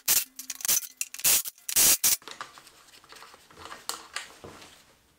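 Four short, loud hissing bursts in the first two seconds, then quieter clinks and rubbing of tools and metal parts during an engine teardown.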